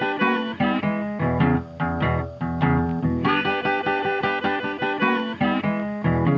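Background music with plucked guitar playing a steady run of notes.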